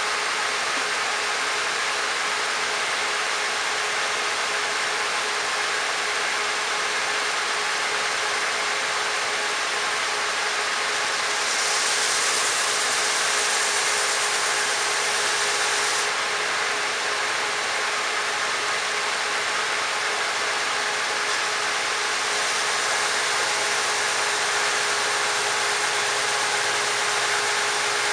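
Grinder running steadily as the tang of an O1 tool steel knife blank is ground down to a taper, a continuous hiss of steel against the abrasive over a steady motor hum. About twelve seconds in the hiss grows brighter and a little louder for a few seconds, then settles back.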